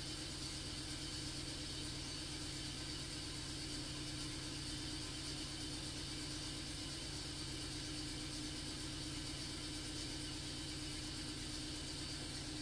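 Toyota Altis four-cylinder engine idling steadily with a rough idle: it has a misfire, which the mechanic puts down to weak ignition on one cylinder.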